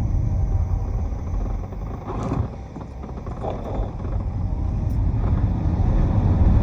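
Inside the cabin of a new-model Honda Step WGN minivan while driving: a steady low road and drive rumble that dips briefly near the middle, with a few faint ticks. This is the recording of the abnormal noise the owner hears near their ear while driving.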